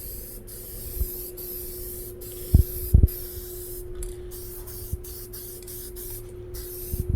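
Aerosol can of guide coat spraying in short bursts of hiss, with brief breaks between passes over sanded body filler and primer, and two knocks about two and a half and three seconds in.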